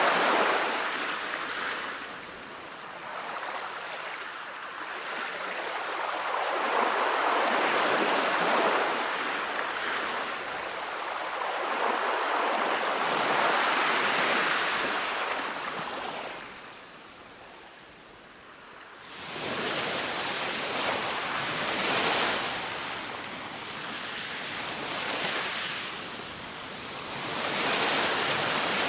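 Small waves washing up onto a sandy beach, each surge swelling and falling back every few seconds. About two-thirds of the way through the sound changes abruptly to brighter, choppier surf with shorter surges.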